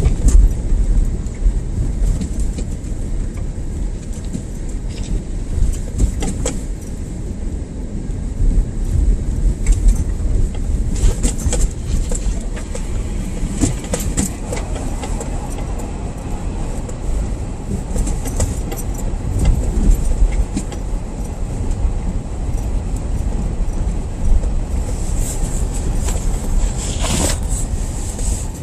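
Car driving on snow-covered roads, heard from inside the cabin: a steady low road and engine rumble, with scattered light clicks and knocks.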